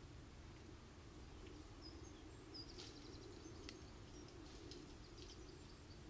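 Near silence: a faint steady low hum, with a few faint, short bird chirps and a single click about halfway through.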